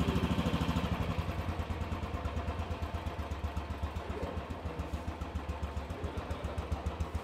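Royal Enfield Bullet Trials 350's single-cylinder, air-cooled four-stroke engine idling through its upswept silencer, with a steady, even thump.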